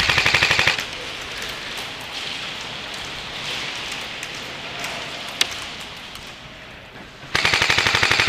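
Airsoft gun firing two rapid full-auto bursts: a short one at the start and a longer one beginning near the end. A single shot comes between them.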